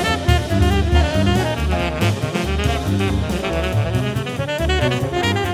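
Jazz background music with saxophone, a walking bass line and drum kit.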